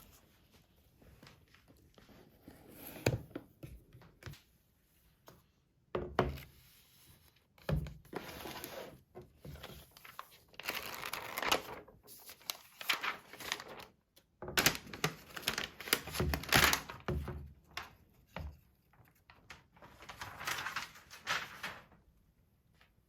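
Household objects being handled and set down: a few soft thunks and stretches of rustling, crinkling noise.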